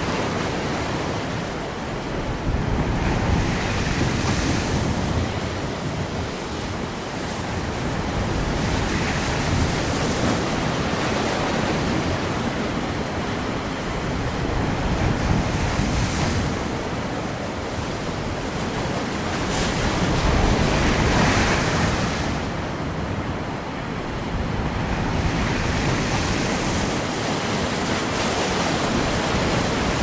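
Stormy sea surf with wind: waves breaking and washing in a continuous rush that swells and eases every five or six seconds.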